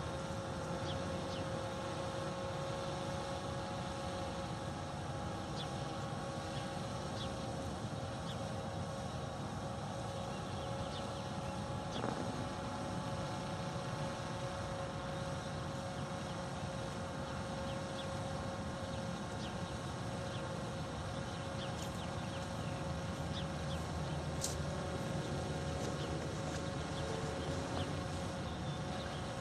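Federal Signal 2001-SRN outdoor warning siren sounding a steady, unwavering tone during its monthly test, with a second, lower siren tone that drops out about seven seconds in.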